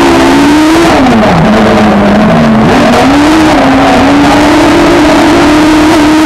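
Citroën Saxo autocross prototype's engine heard on board under racing load, loud throughout. The revs drop sharply about a second in, dip again briefly, then climb back and hold high, over a steady rush of noise.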